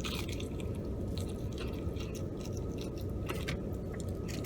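A person chewing food close to the microphone, with small wet mouth clicks, over a steady low hum.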